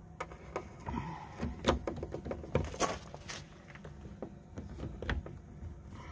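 Irregular metallic clicks and scrapes of a Torx T20 bit on a long extension being fitted into the door-edge access hole and turned on the screw that holds the door handle. The loudest clicks bunch together between about one and three and a half seconds in.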